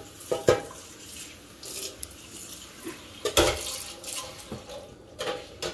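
Kitchenware being handled: a few separate knocks and clatters of dishes and utensils, the loudest about three and a half seconds in, over a faint trickle of water.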